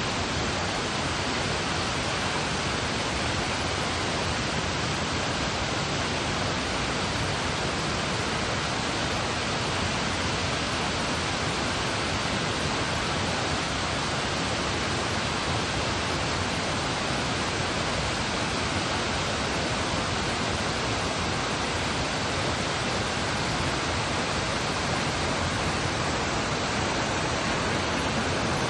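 Waterfall's falling water making a steady, unbroken rush.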